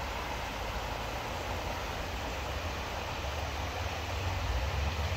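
Shallow river water running over stones: a steady rushing hiss, with a low rumble underneath.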